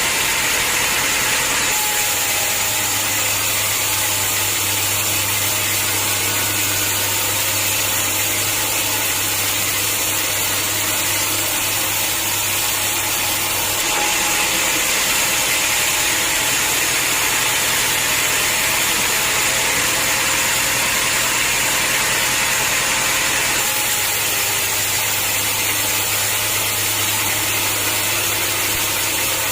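Sawmill machinery running steadily: a motor hum under the continuous hiss of a saw working through hard acacia logs. The hum changes its tone a few times.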